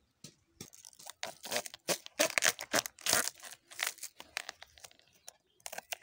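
The outer sheaths of a banana stem being peeled off by hand: a run of ripping and crunching strokes, loudest in the middle.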